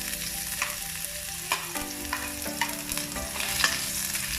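Garlic sizzling in hot cooking oil in a pan, with a steady frying hiss. A utensil clicks against the pan about four times, roughly a second apart, as the garlic is stirred.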